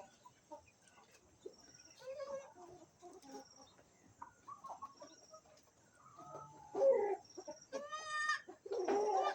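Chickens clucking and calling, in scattered short calls, loudest near the end. Behind them a faint high chirp repeats every second or two.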